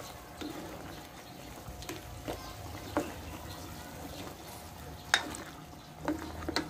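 A metal spoon stirring pork adobo in an aluminium pot, scraping and knocking against the pot's sides with scattered sharp clinks, the loudest about five seconds in and a few more near the end.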